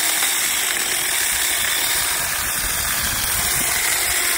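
Saker battery-powered mini chainsaw running steadily as its chain cuts into a small log.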